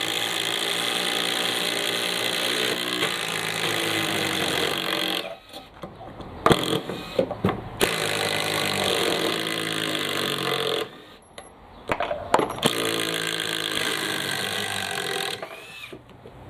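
Two cordless impact drivers, a Makita subcompact and a Bosch, hammering long batten screws into pine together, their motor pitch shifting as the screws bite. They run in three stretches, with short clicky pauses about five and eleven seconds in as the next screws are set.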